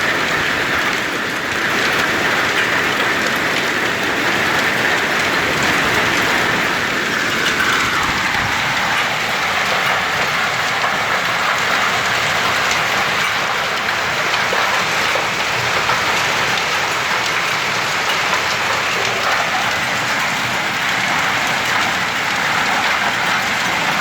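Heavy rain falling steadily, a dense hiss of drops spattering on hard surfaces. The downpour's lower part eases a little about eight seconds in.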